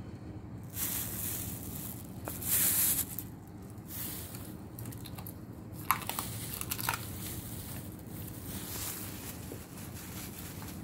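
A dog biting and crunching on a small gutted red snapper, with sharp crunches about six seconds in and wet tearing and chewing after. A loud rustle comes about two and a half seconds in.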